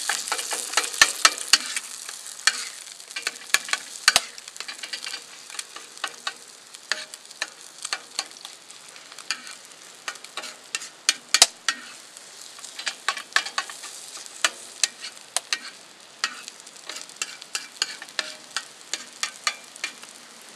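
Eggs sizzling in a cast-iron skillet while a plastic spatula stirs and chops them, scraping and tapping on the pan in many sharp clicks over the steady sizzle, which is strongest in the first couple of seconds.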